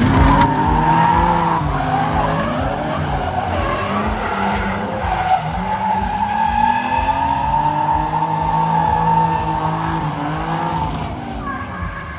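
Two drift cars sliding in tandem: engines revving up and down over and over, with long tyre screeches held through the slides, loudest at the start and again in the second half.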